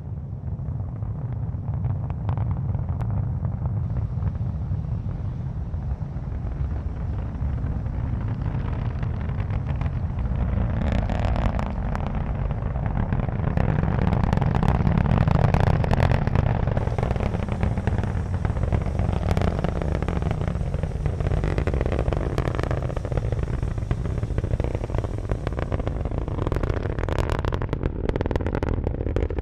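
Falcon 9 first stage's nine Merlin engines in powered ascent: a deep, steady rumble that swells in the first couple of seconds and is loudest around the middle, with sharp crackling from about ten seconds in.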